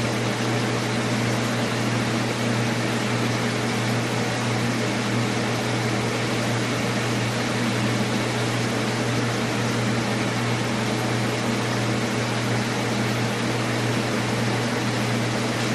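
Steady machine hum with an even hiss over it and no changes, like a fan or ventilation running.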